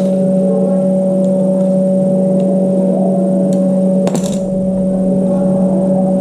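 Refrigerator compressor giving a loud, steady hum, the strange noise that marks the fridge as needing repair, with a single sharp click about four seconds in.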